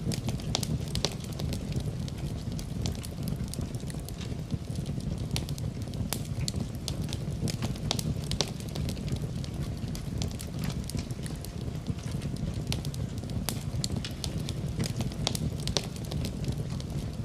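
Wood fire crackling in a fireplace: irregular sharp pops and snaps over a steady low rush of burning.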